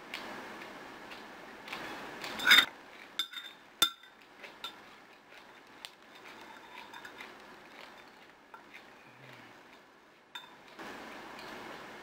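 Metal spoon clinking and scraping against a glass bowl, with a few sharp ringing clinks and one louder brief noise a couple of seconds in.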